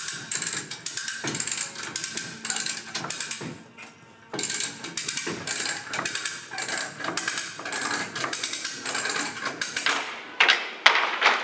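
A ratchet being worked to take up tension on a rope-and-pulley lifting rig: a rapid run of clicks with a short pause about four seconds in.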